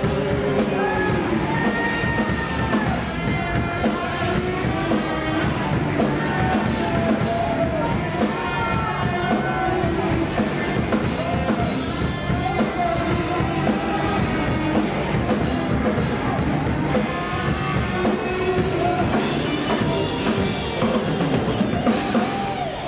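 Live rock band playing: electric guitars over drum kit and bass, with a bending melodic lead line on top.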